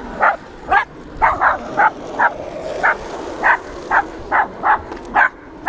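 Small dog barking in a rapid run of short, sharp barks, two to three a second: reactive barking set off by a passing skateboard.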